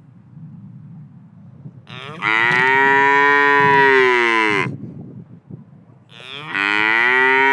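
A black and white cow mooing twice: two long, loud moos with a few seconds between them, each dropping in pitch as it ends.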